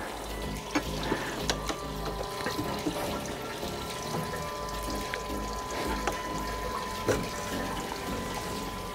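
Faint metal clicks and scrapes of a spanner and gloved hands unscrewing the top of a Showa 47 fork cartridge held in a vise, a few separate ticks over a steady shop hiss and hum.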